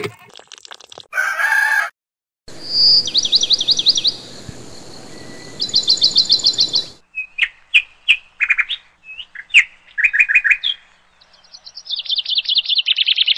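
Small birds chirping: several bursts of rapid, high-pitched repeated chirps, with scattered single chirps in between.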